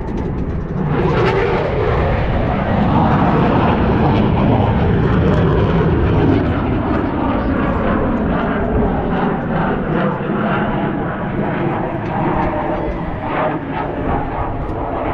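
Jet aircraft passing overhead: a loud roar that builds about a second in, peaks a few seconds later and slowly fades with a falling pitch.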